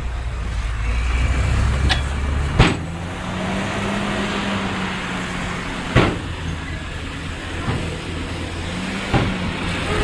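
Heavy diesel earth-moving machinery running, the engine note shifting about two and a half seconds in, with three sharp bangs roughly three seconds apart.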